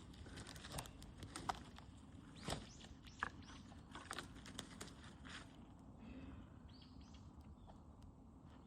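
Wood bonfire crackling, with irregular sharp pops and snaps that thin out after about five seconds. A few bird chirps come near the end.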